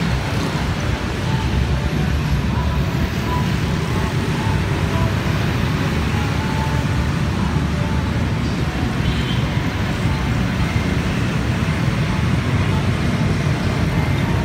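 Steady jet roar of an Airbus A320neo's twin Pratt & Whitney PW1100G geared turbofans climbing out overhead after takeoff, blended with street traffic and passing motorbikes.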